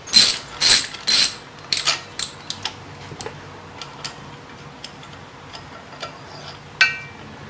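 Ratcheting wrench clicking as it turns a thread tap, held in a square-drive socket, through rusty threads in a cast iron hub. Loud clicks come about two a second, then fainter ticks until about four seconds in, and there is a single ringing metallic clink near the end.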